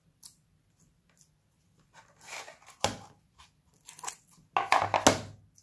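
Fingers squishing and poking sticky glossy slime: several short wet, crackly squishes, the loudest near the end.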